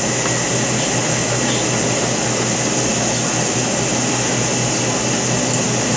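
Steady background hiss with a constant low hum, unchanging throughout, with a couple of faint ticks near the end.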